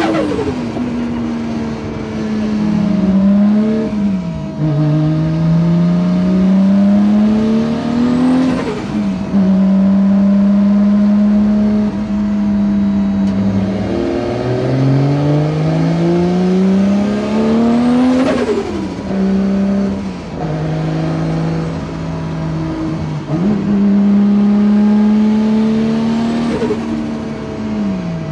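Nissan Skyline GT-R's turbocharged RB straight-six heard from inside the cabin, pulling through the gears. The engine note climbs and then drops at each upshift with a short turbo whoosh, four times, with steadier cruising stretches between.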